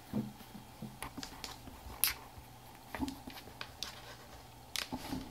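Scattered light clicks and taps of small clear plastic slime containers and lids being handled on a tabletop, a dozen or so irregular ticks with a sharper one about two seconds in and near the end.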